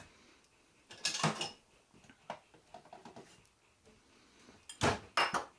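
Kitchen containers being handled and opened at a counter: short rustling scrapes about a second in and again near the end, with a few light clicks in between.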